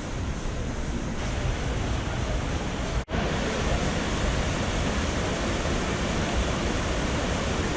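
Steady rush of river water tumbling over waterfalls, broken by a short dropout about three seconds in.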